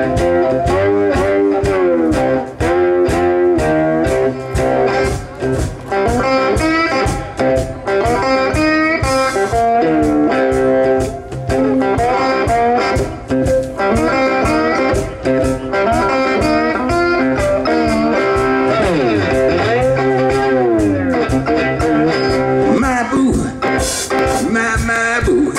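Live blues band playing an instrumental passage: an electric guitar lead full of bent, sliding notes over a steady drum beat.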